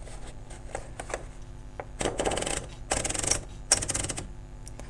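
A sheet of paper being wound into a Royal 202 typewriter by turning the platen knob: three short bursts of fast ratcheting clicks with paper rustle, about a second apart.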